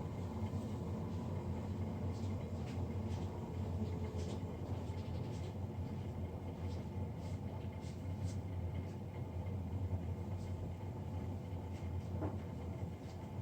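Navien NCB-240 gas combi boiler's blower fan running with a steady low hum, the loud fan noise the owner is complaining of. Faint light ticks come and go over it.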